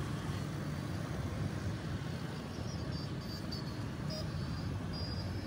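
Steady road noise heard while riding a motor scooter through city traffic: a low rumble of wind, engine and surrounding vehicles, with no single sound standing out.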